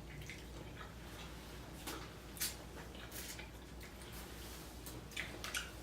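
Close-up eating sounds of a seafood boil: scattered short, wet clicks and smacks of chewing and handling the food, about eight in all.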